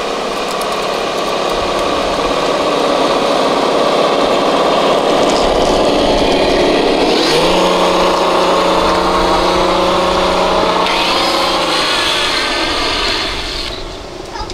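Traxxas TRX-6 6x6 RC truck's electric motor and gears whining as it drives over dirt, the whine rising sharply about halfway through, holding steady at speed for several seconds, then dying away near the end.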